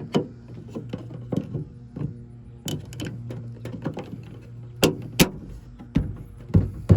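Irregular sharp plastic clicks and knocks as a replacement tailgate handle bezel is pressed into place, its pegs and clips snapping in, with the loudest knocks in the second half. Steady background music runs underneath.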